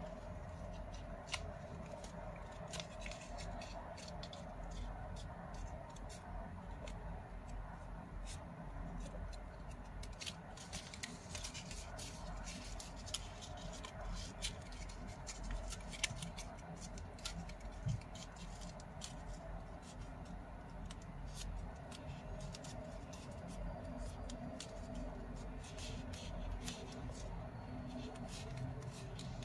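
Origami paper crinkling and creasing between the fingers as a paper crane is folded and shaped: a scatter of small, crisp paper clicks and rustles over a steady low background hum.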